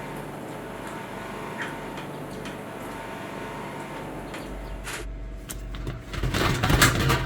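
Quiet steady background, then about six seconds in a loud burst of rustling and knocking from the freshly killed chicken in its killing cone, either the bird's post-mortem muscle twitching or its handling.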